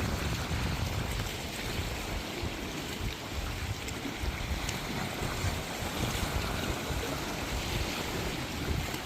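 Tropical sea waves washing onto a shore: a steady rush of surf with a gusty low rumble underneath.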